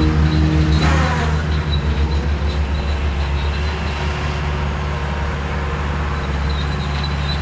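Engine of mowing equipment running steadily, with a faint steady high whine above it and a brief swell of noise about a second in.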